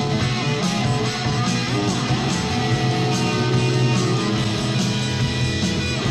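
Guitar-led 1970s rock recording playing steadily, with strummed electric guitar over a full band.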